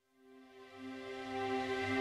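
Ambient background music fading in: sustained, held notes that start just after the beginning and grow steadily louder.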